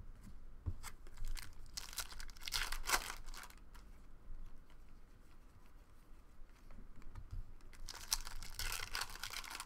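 Foil trading-card pack wrapper crinkling and being torn open, with cards being handled between. The crackle comes in two bursts, about two seconds in and again near the end.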